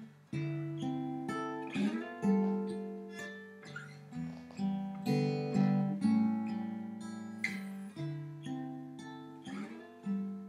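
Acoustic guitar playing an instrumental passage: strummed chords, each left to ring and fade, about two strokes a second, with the chord changing every second or so.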